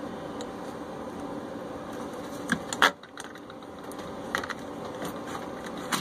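Hands working a washing machine's plastic drain pump loose from its hose: a few sharp plastic clicks and knocks, the loudest pair about halfway through and a lighter one later, over a steady hiss.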